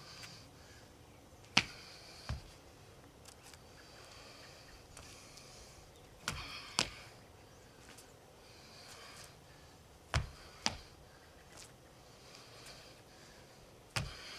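Sharp snaps and thuds from a martial artist's explosive strikes in a tai chi form, coming in four pairs, the two hits in each pair about half a second apart.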